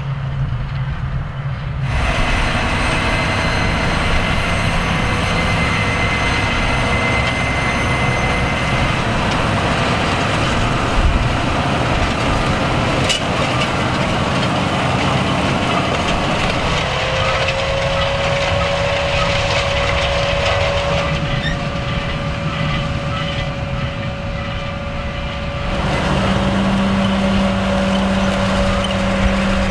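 Claas Xerion 4000 tractor running steadily under load while pulling a Lemken Azurit precision planter, with a steady whine over the engine's rumble. The sound shifts abruptly a few times.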